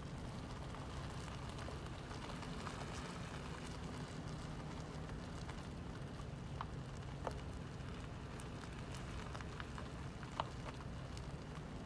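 Car driving slowly, heard from inside the cabin: a steady low engine and road rumble under a fine crackling tyre noise, with a few small sharp ticks in the second half.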